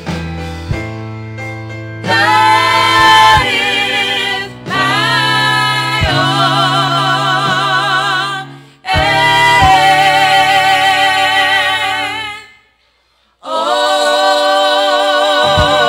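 Gospel singing by two women's voices over electric keyboard accompaniment. The keyboard plays alone for about two seconds before the voices come in with long held notes and vibrato, and everything breaks off briefly about twelve and a half seconds in before the singing resumes.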